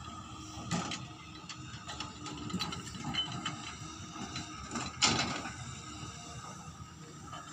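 Tracked hydraulic excavator digging, heard from a distance: a steady diesel engine and hydraulic drone with scattered metallic clanks from the bucket, one sharp clank about five seconds in being the loudest.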